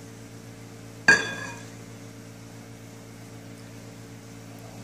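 A single sharp clink about a second in, ringing and fading briefly: a measuring cup knocking against the rim of a glass mixing bowl as milk is poured in. A steady low hum sits underneath.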